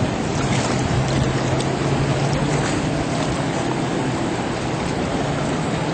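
Jet ski engine running out on the water as a steady low drone, under the rush of surf and wind.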